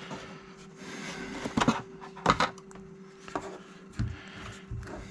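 Hard-case LiPo battery packs being handled: about five separate knocks and clatters of hard plastic over a faint steady hum.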